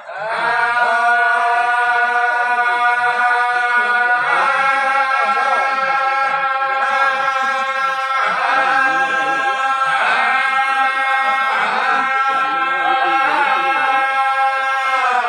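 Male voices of an Assamese ojha pali troupe singing together in a chant-like style over a steady held drone note.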